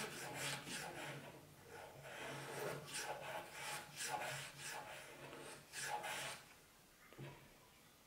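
Veritas bullnose hand plane shaving a wooden board in quick back-and-forth strokes, each a short rasping cut, about two a second. The strokes stop about six and a half seconds in.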